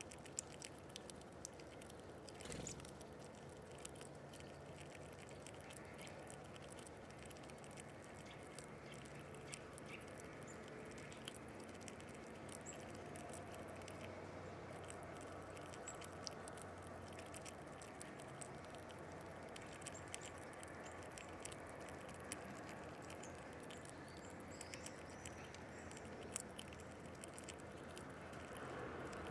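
Faint, scattered ticks and taps of small animals feeding at a window feeder, over a steady low background hum.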